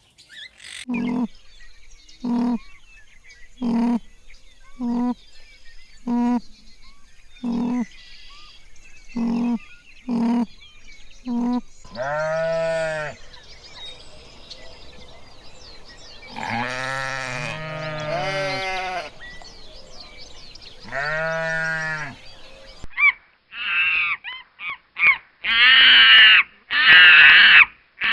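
Farm animals calling in separate clips. First comes a run of about nine short calls, roughly one every second and a bit. Then three long, wavering bleats follow, and about 23 seconds in, louder high-pitched calls take over.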